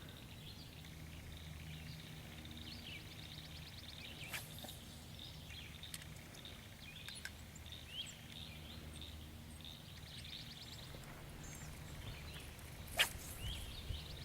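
Faint outdoor ambience: small birds chirping and giving short rapid trills over a steady low hum, with two brief sharp clicks, one about four seconds in and a louder one near the end.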